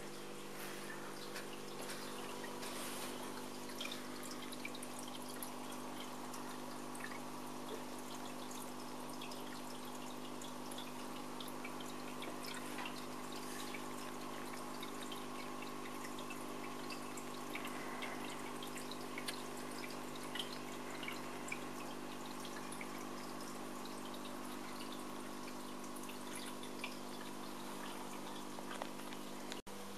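Aquarium filter running: water trickling and splashing into the tank over a steady hum.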